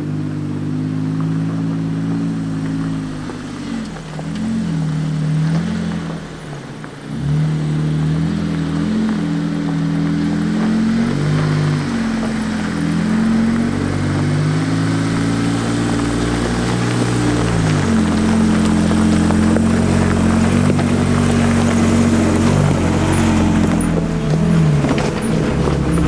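Jeep Wrangler driving slowly along a gravel trail: the engine hums, its pitch shifting up and down every few seconds, with tyre noise on the gravel getting louder in the second half as it comes closer.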